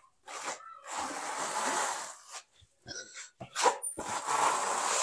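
Steel hand trowel scraping wet mortar across a mesh-covered wall. It makes several spreading strokes: two long ones about a second and a half each, with short scrapes between.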